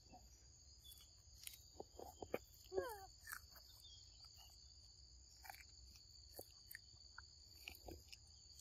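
Faint, steady high-pitched drone of forest insects, with scattered soft clicks and a short falling call about three seconds in.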